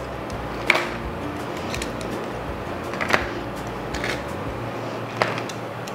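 Light clicks and knocks as baked chicken breasts are set into plastic meal containers, one per container. There are about four of them, a second or more apart, over faint background music.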